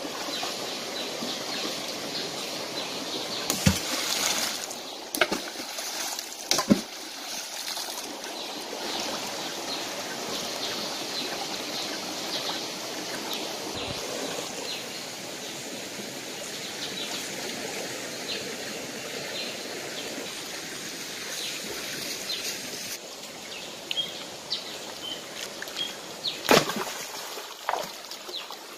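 Shallow rocky stream running steadily, with occasional splashes and sharp knocks in the water, a cluster of them several seconds in and a few more near the end as someone wades.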